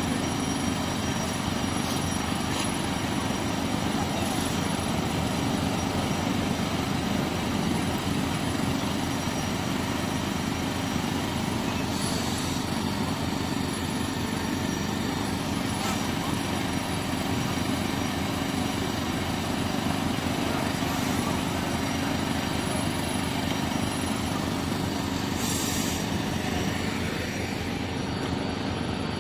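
Fire-service equipment engines running steadily at a fire scene: a continuous low engine drone with no letup.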